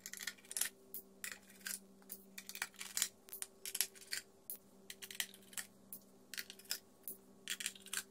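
Small metal screws clicking and clinking in quick, irregular succession as they are worked out of a graphics card's backplate and handled, over a faint steady hum.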